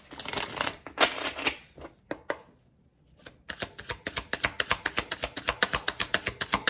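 Tarot cards being handled and shuffled: papery sliding hiss for about the first second and a half, then after a short pause a fast, even run of card clicks, about eight a second, from about halfway through.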